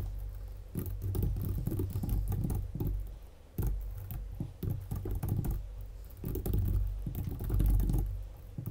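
Computer keyboard typing: a quick run of key clicks with a brief pause about three and a half seconds in.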